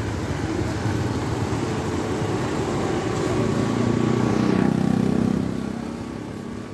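Road traffic passing on a roadside street, motorbikes among it; one vehicle's engine swells to its loudest about four to five seconds in, then fades away.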